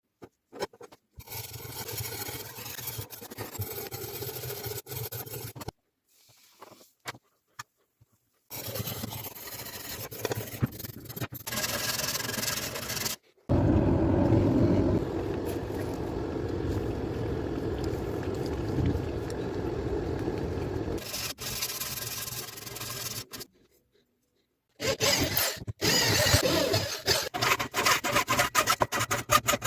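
Hand tools scraping, sanding and filing a knife blade, heard in several separate stretches that start and stop abruptly. Near the end come quick repeated strokes.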